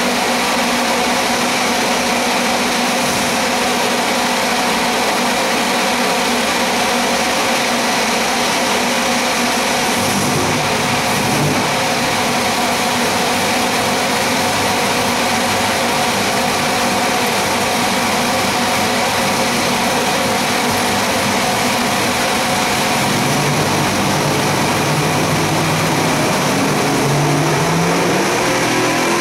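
Twin-turbo 481X V8 (525 cubic inches) running on an engine dyno, holding steady. Its sound deepens about ten seconds in, and over the last several seconds the revs climb in short rises as the dyno pull gets under way.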